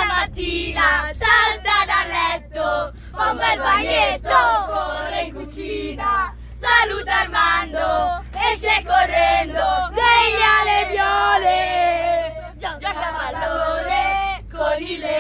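A group of boys singing and chanting together, some notes held, over a steady low hum from the coach they ride in.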